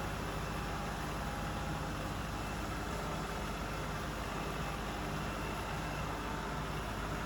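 An engine running steadily at an even speed: a constant low hum that neither rises nor falls.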